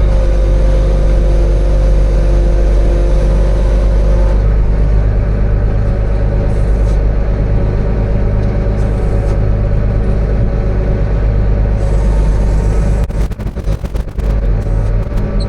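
Tractor engine running steadily at a constant speed. About 13 seconds in, a brief clatter interrupts it.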